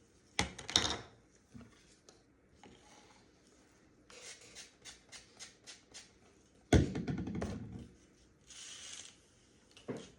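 Hands working on a wig: a run of light quick strokes or snips, a louder rustling knock lasting about a second partway through, and a brief hiss near the end.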